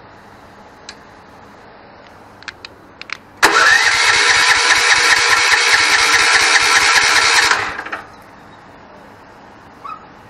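A few light clicks, then an electric starter cranks a homemade go-kart's 420cc single-cylinder engine for about four seconds. It whines up to speed at the start, with an even chugging of compression strokes, then stops without the engine catching: it won't start.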